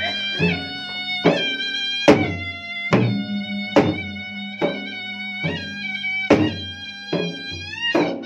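Traditional Bugis-Makassar gendang music: two double-headed gendang drums beaten with a stick and the hand, a strong stroke a little more than once a second with lighter strokes between, under a continuous reedy melody from a pui'-pui' double-reed pipe.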